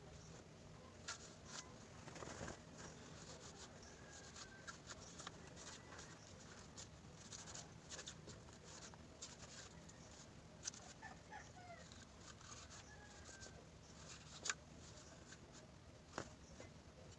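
Quiet handling of a plastic clip fan during cleaning: scattered light clicks and knocks, with one sharper click near the end. Faint bird chirps are in the background.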